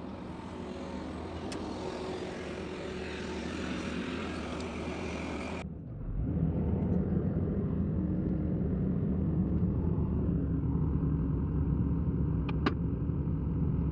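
Excavator's diesel engine running steadily. About six seconds in, the sound cuts to a louder, deeper engine rumble, with a sharp click near the end.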